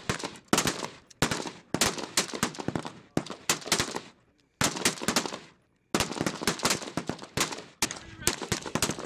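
Several Marines' rifles firing single shots together on a firing line, a dense, uneven string of overlapping sharp cracks, several a second, each with a short echoing tail. The shooting breaks off briefly twice near the middle.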